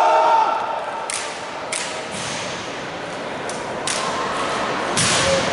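Sharp cracks and thuds from an armed drill routine, with drill rifles slapped, caught and struck, echoing in a large hall. There are about five irregularly spaced impacts over a steady murmur.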